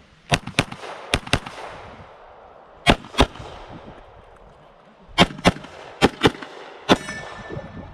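Canik TTI Combat 9mm pistol fired eleven times, mostly in quick double taps about a quarter second apart. Five pairs and a final single shot, with pauses of one to two seconds between groups.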